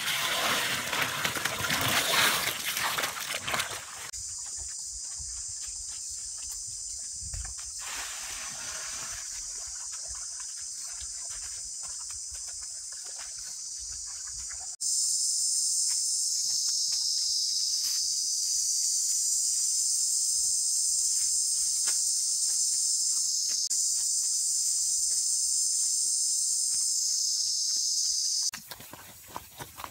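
Wet mud and gravel being squelched and worked by hand at the start, then a steady high-pitched insect chorus that grows louder about fifteen seconds in and cuts off abruptly near the end.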